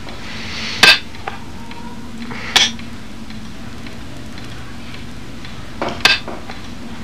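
Janggi (Korean chess) pieces slapped down on a wooden board: three sharp clacks, about one second, two and a half seconds and six seconds in, the last preceded by a lighter tap.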